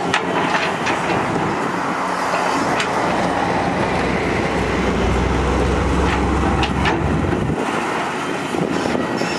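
Caterpillar hydraulic excavator's diesel engine working under load as it digs soil, with a few sharp clanks. A deep rumble joins about halfway through and cuts off suddenly about three-quarters of the way in.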